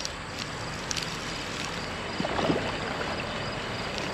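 Steady rushing noise of flowing creek water mixed with the hum of traffic from a nearby busy road and highway.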